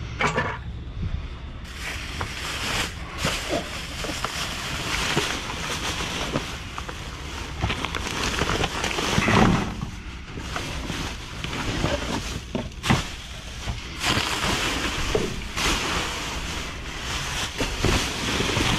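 Rummaging through a dumpster: irregular rustling of trash bags and items, with scattered knocks and clatters, the loudest about halfway through.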